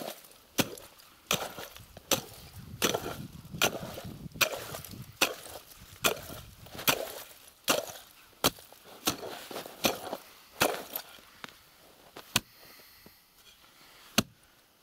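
Steel ice chisel striking down into ice to chop a fishing hole, in steady repeated blows a little over one a second. The blows stop about twelve seconds in, and one more strike comes near the end.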